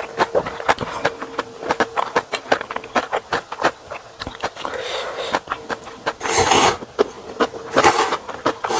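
Close-up eating sounds of a person eating spicy ramen: chewing with many short wet clicks and smacks, and two longer slurps, one about six seconds in and one near the end.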